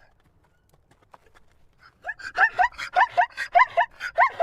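Zebra barking: a quick run of short, high yelping calls, each rising and falling in pitch, several a second, starting about two seconds in.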